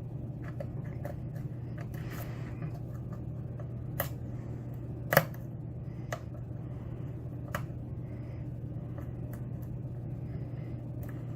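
Scattered small clicks of a lock pick and tension wrench working the pins of a pin-tumbler challenge lock during single-pin picking, with one louder click about five seconds in, over a steady low hum.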